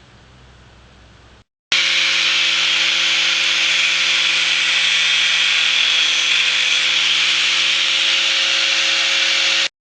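A power tool running steadily under load: a steady motor hum under a loud, harsh hiss of the tool working material. It starts abruptly about two seconds in and cuts off just before the end.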